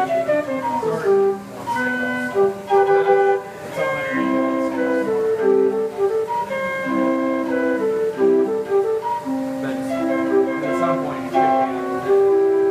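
Homemade automated pipe organ playing a tune: flute-like pipe notes, several sounding together in chords, some short and some held for a second or more.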